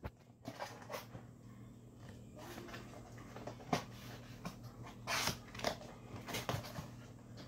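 Cardboard laptop box being opened and handled: scattered soft scrapes, rustles and light knocks of the lid and flaps, with a slightly longer rustle about five seconds in.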